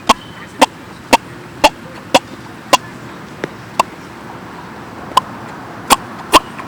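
Pops made by squeezing the skin pocket behind the knee, a home-made fart noise. They come in a string of loud, sharp pops about two a second, pause for about a second, then start again near the end.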